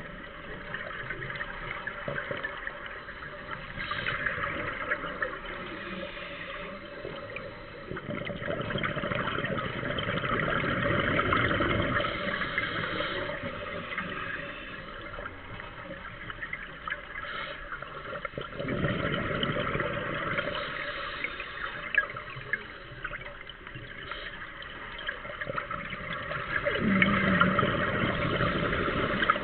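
Underwater sound of a scuba diver breathing through a regulator: exhaled bubbles burble out in about four surges of a few seconds each, spaced several seconds apart, over a steady watery rush.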